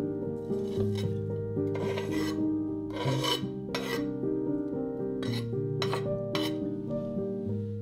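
Chef's knife blade scraping chopped spring onions across a wooden cutting board into a metal bowl: a series of short rasping scrapes, the longest about three seconds in. Background music plays throughout.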